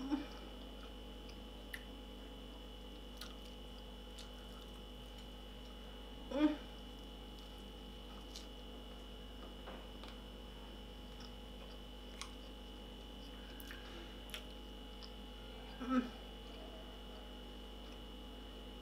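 A person chewing crispy fried chicken wings, with faint clicks of chewing over a steady electrical hum. Twice, about six and sixteen seconds in, comes a short closed-mouth 'mmm' of enjoyment.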